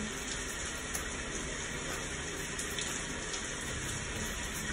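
Recorded rain playing as a background soundscape: a steady, even hiss of heavy rainfall.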